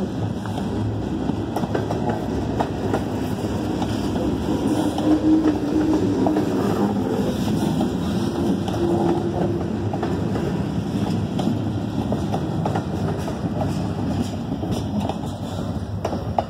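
Loaded freight cars rolling steadily past on the track: a continuous rumble of wheels on rail, broken by repeated clicks as the wheels cross the rail joints.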